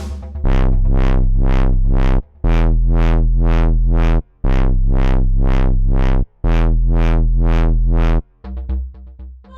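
Electronic dance music with a heavy sustained bass and a rapid synth pulse about four times a second, in four phrases broken by brief drops.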